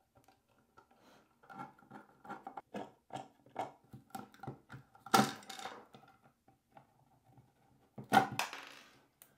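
Handling noise as a 3.5-inch woofer is worked loose and pulled out of a plastic speaker enclosure: a run of small clicks and knocks, then two louder scraping clunks about five and eight seconds in.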